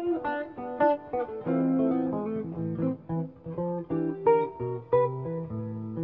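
Two jazz guitars playing a duet in counterpoint, with plucked notes of a low bass line moving under a higher melody line.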